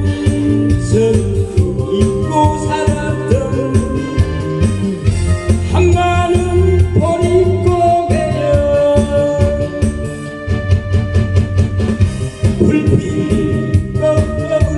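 Korean trot song playing: a backing track with a steady drum beat under a sustained, wavering melody line.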